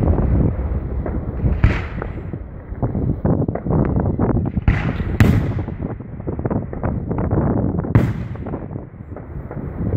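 Aerial firework shells bursting overhead: four sharp bangs, one about two seconds in, two close together around five seconds and one near eight seconds, with rapid crackling between them and a low rumble of echoes throughout.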